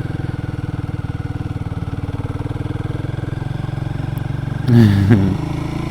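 Royal Enfield Guerrilla 450's single-cylinder engine running at a steady, low speed, its exhaust pulsing evenly and rapidly.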